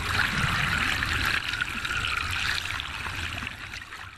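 Water splashing and trickling, a steady rushing wash that fades out near the end.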